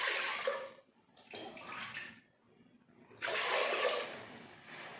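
Water being poured from a cup into a pressure cooker, in separate pours with short pauses between them.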